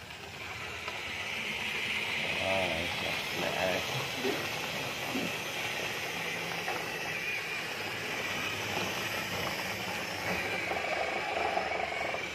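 Plastic toy trucks rolled along a wooden floor: a steady mechanical noise of their plastic wheels and gears.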